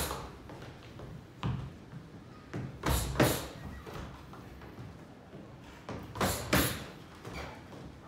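Boxing gloves smacking leather focus mitts in a series of sharp hits, several in quick pairs like combinations, with short pauses between.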